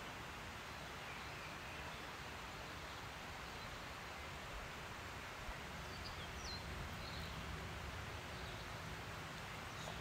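Faint open-country ambience: a steady hiss of wind and background noise, with a few faint high chirps from a small songbird about halfway through and a low steady hum from about six seconds on.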